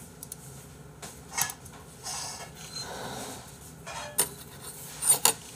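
Steel spoon and chopsticks clinking against a stainless steel bowl as they are picked up: a few light, sharp clinks, the loudest pair near the end.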